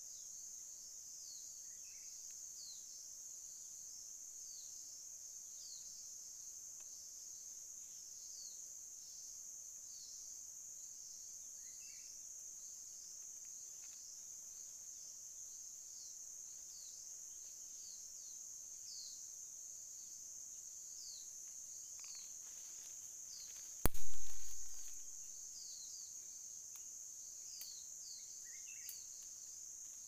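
Steady high-pitched chorus of forest insects, with falling chirps repeating about twice a second. About three-quarters of the way through there is a single loud knock with a short low rumble after it.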